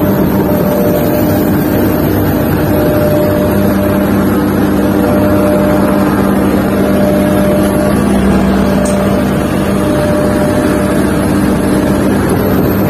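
Sumitomo SH250 excavator's diesel engine running steadily, heard from inside the operator's cab: a loud, even hum.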